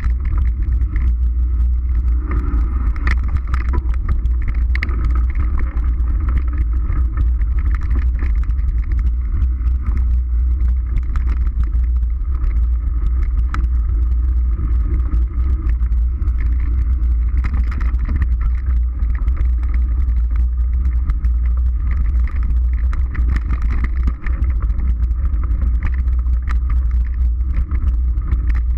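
Mountain bike riding down a dirt forest trail, heard through a bike-mounted action camera: a steady heavy rumble of wind and trail vibration on the microphone, with frequent small clicks and rattles from the bike over the bumps.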